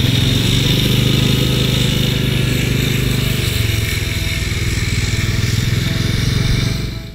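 ATV engine running steadily as the four-wheeler drives across the plot, fading out near the end.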